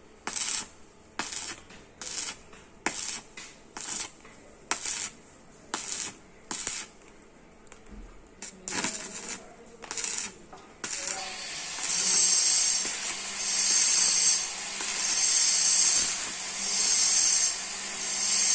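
Steel fabrication noise: a run of short, sharp metallic bursts about once a second, then from about eleven seconds in a power tool, most likely an angle grinder, running steadily on steel in loud pulses as it bites and eases off.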